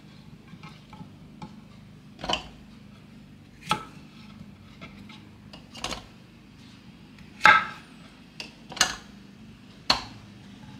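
Irregular knocks and taps of a kitchen knife and cucumber chunks against a wooden cutting board as the cucumber is cut and the pieces are handled, about six distinct knocks spaced a second or two apart.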